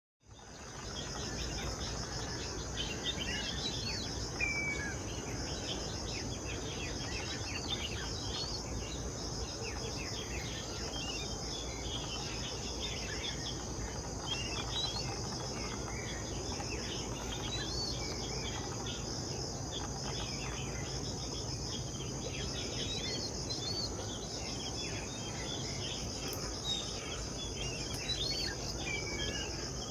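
Wetland ambience: insects trilling steadily and high, with many short bird chirps and whistles scattered through it over a low background hum. The sound fades in over the first second.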